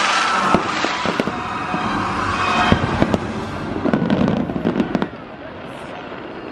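Fireworks display: aerial shells bursting with sharp bangs over a rumbling haze, with a rapid run of crackling reports about four to five seconds in, then dying down.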